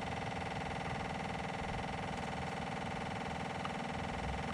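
MEP-802A military diesel generator set running with a steady, even hum of several held tones after being switched on.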